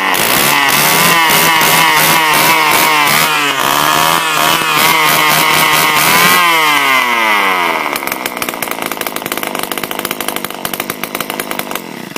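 Homelite ST155 string trimmer's two-stroke engine running loud and revving unevenly up and down at high speed, its throttle worked by hand at the carburettor because it has no throttle linkage. About six seconds in the revs fall away and it settles to a lower idle.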